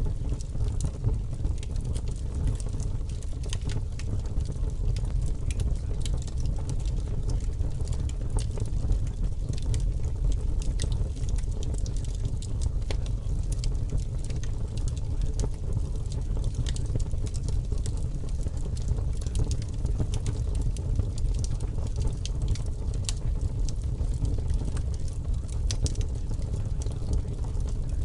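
Steady low rumbling noise with scattered faint crackles and ticks, unchanging throughout: the masking sound bed of a subliminal track.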